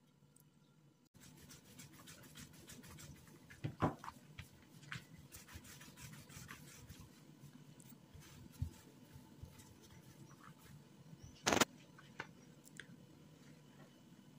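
Wooden rolling pin rolling out soft dough on a table, with scattered light knocks and rubbing and two louder knocks, about four seconds in and again after about eleven and a half seconds.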